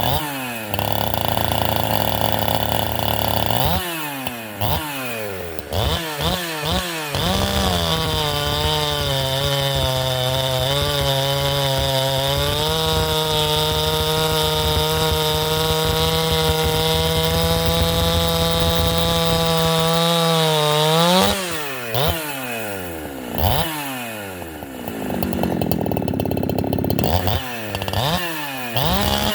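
Holzfforma G372 two-stroke chainsaw with a 28-inch bar is revved up and held at steady high throttle under load for about thirteen seconds, cutting through a green red oak log with its re-filed chain. Near two-thirds through the pitch jumps up briefly as the saw breaks free, then the throttle is released and blipped several times, each rev falling away.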